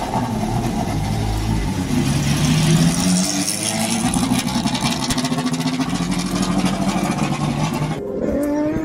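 Turismo Carretera race car engine running loudly as the car moves off along the pit lane, its note climbing a couple of seconds in and then holding steady. About eight seconds in the sound changes abruptly to a single engine note rising in pitch.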